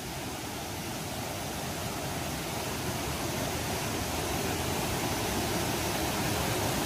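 Steady rushing of a waterfall, a continuous hiss of water that grows gradually louder.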